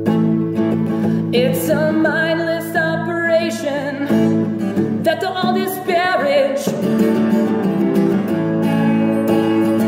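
A man singing while strumming an acoustic guitar: steady chord strumming throughout, with two sung lines, one starting about a second and a half in and another about five seconds in.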